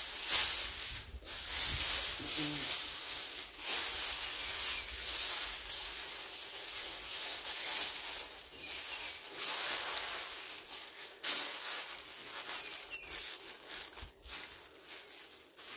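Aluminium foil crinkling and rustling as it is folded and pressed tightly around a cooked pork butt, the crackle coming and going unevenly with each fold.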